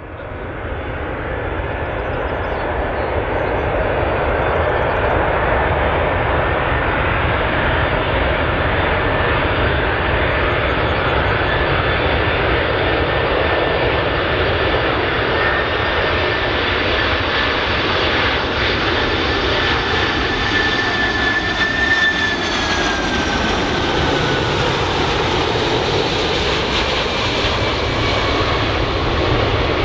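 Four-engine Boeing 747-400 jet airliner on landing approach, its engines making a steady, loud roar that fades in over the first few seconds. A thin whine runs through the roar and drops in pitch about three quarters of the way through.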